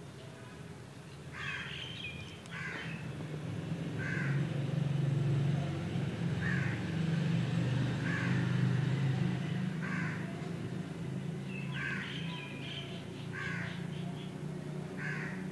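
A bird calling repeatedly outdoors, with about nine short calls spaced every second and a half to two seconds, over a steady low hum.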